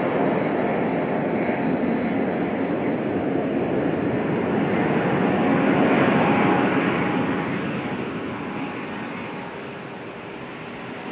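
Jet engines of a KC-135 Stratotanker, four turbofans, on its takeoff roll. The roar grows to its loudest as the tanker passes, about six seconds in, then fades as it moves away.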